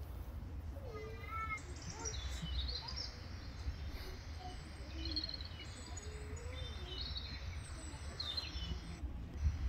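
Small birds chirping, with short calls and trills scattered throughout, over a steady low rumble.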